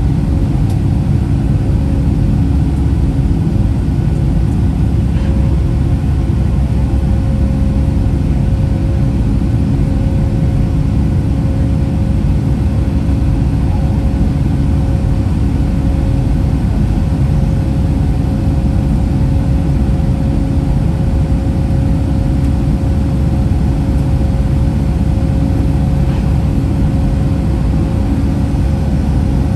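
Cabin noise inside a Boeing 757-200 climbing shortly after takeoff: a loud, steady roar of the jet engines at climb power, with a steady mid-pitched hum over a deep rumble.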